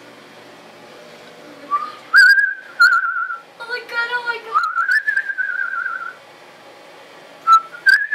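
A person whistling a wavering, warbling tune that starts about two seconds in, breaks off for a moment and picks up again near the end, with a few sharp clicks along the way.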